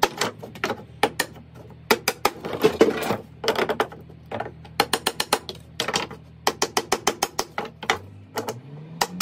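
Claw hammer tapping the clipped-off nail stubs out of a pallet board on a wooden workbench: many light, sharp taps, some in quick runs of several a second.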